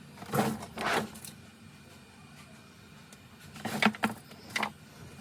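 Four short sputtering bursts of air from a nearly empty tube of LCD adhesive being squeezed, two close together, then two more about three seconds later.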